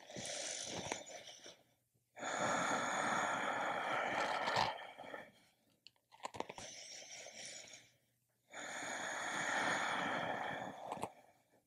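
Slow, deep breathing made audible by a person holding a yoga pose: four long breaths of a few seconds each, alternating softer and louder.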